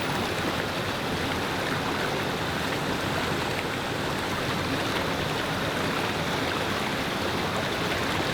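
River water rushing steadily over stones, an even, unbroken flow.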